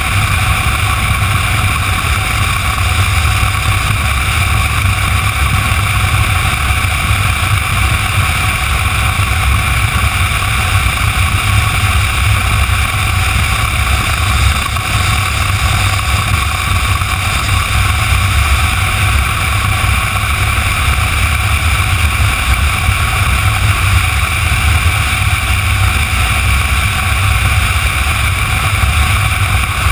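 Motorcycle cruising at a steady highway speed: a constant rush of wind over the camera microphone over the engine and tyre drone, with no change in pace.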